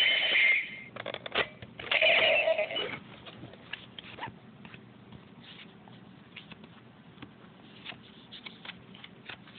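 Power Rangers Megaforce Gosei Morpher toy playing two short electronic sound effects in the first three seconds as a card is slid into it. After that, only quiet plastic clicks and card handling.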